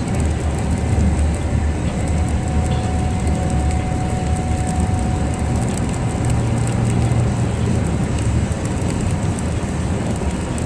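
Steady low rumble of a moving vehicle, with a faint thin tone for a few seconds in the middle.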